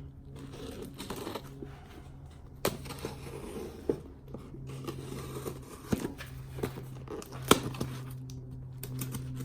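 A delivered parcel being opened by hand: irregular tearing, crinkling and small knocks of packaging, with a faint low hum that comes and goes.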